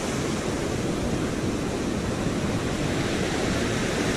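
Ocean surf breaking and washing up a sandy beach: a steady, even rush of waves and foam.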